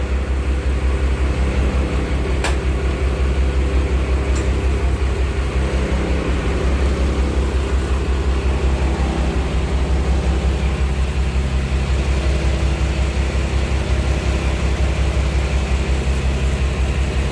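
Passenger motorboat's engine running steadily under way, a loud low pulsing drone, with a couple of brief clicks in the first few seconds.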